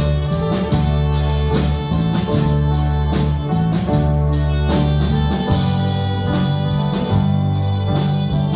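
Live instrumental worship band music: guitar over sustained bass notes with a regular drum beat, no singing.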